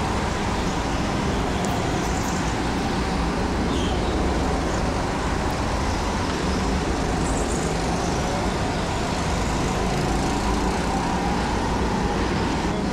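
Racing go-kart running at speed, a steady motor and tyre noise heard from on board the kart.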